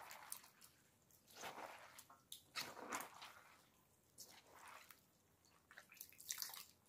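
Shredded cabbage and mixed pickling vegetables being tossed by gloved hands in a stainless steel bowl, giving several separate wet squishes and rustles with dripping beet-stained brine.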